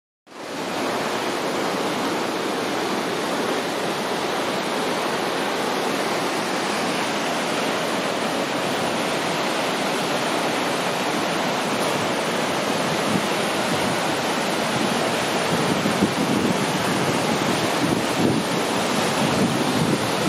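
Waterfall rushing steadily, cutting in just after the start and growing a little louder near the end.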